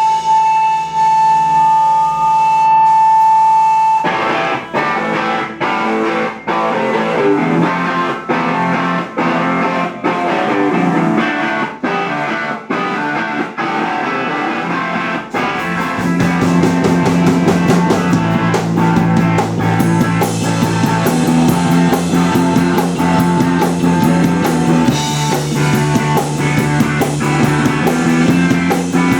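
Rock band playing live: a long held high note for the first few seconds, then guitar and drums in a driving rhythm, with the whole band and bass coming in louder about halfway through.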